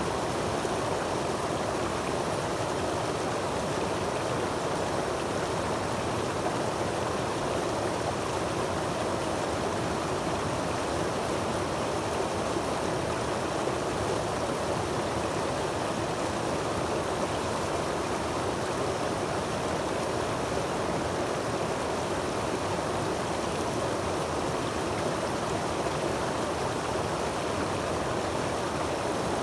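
Creek water cascading over boulders in small falls into a pool: a steady rushing and splashing that does not change.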